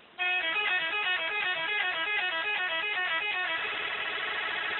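Multi-tone 'telolet' musical air horn of a Dedy Jaya bus playing a short tune of stepped notes. It starts abruptly, breaks into a fast warbling trill for the last second or so, and cuts off sharply.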